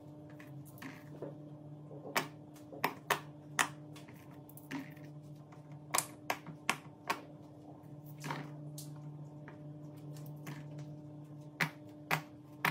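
Silicone pop-it bubbles being pressed one after another on a large pop-it game board, each giving a short sharp pop, in small irregular clusters.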